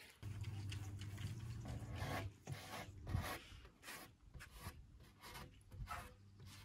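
Hand sanding a plywood panel's edge: repeated short scraping strokes of abrasive on wood, one or two a second. A low steady hum runs under the first two seconds.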